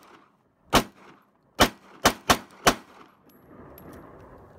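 Pistol shots from a 9 mm Parabellum SIG Sauer handgun: five sharp shots, a single one and then four in quick succession within about a second.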